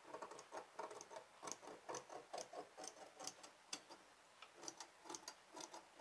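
Tailor's scissors snipping cloth in small trimming cuts: a faint run of irregular clicks, several a second.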